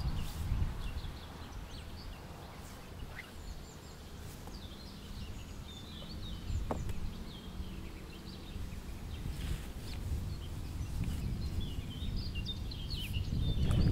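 Small birds chirping and singing on and off, over a low rumble of wind on the microphone.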